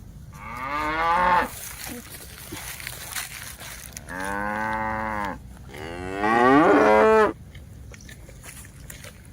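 Cattle mooing: three long calls, one starting about half a second in and two close together in the middle. The first and last rise in pitch, and the last is the loudest.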